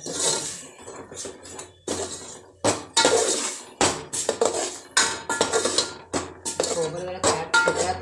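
Steel ladle scraping and knocking against the sides and bottom of an aluminium pot in repeated, irregular strokes as a thick onion-coconut masala paste is stirred and sautéed with a splash of water.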